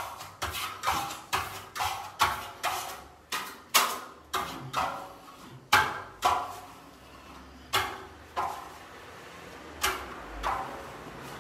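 Steel trowel being swept hard across Venetian lime plaster to burnish it: a run of short, sharp scraping strokes, about two a second at first, then more widely spaced in the second half.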